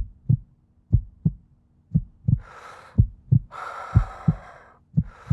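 Heartbeat sound effect: paired low thuds, a beat about once a second, over a steady low hum. From about two and a half seconds in, three spells of hissing noise come between the beats.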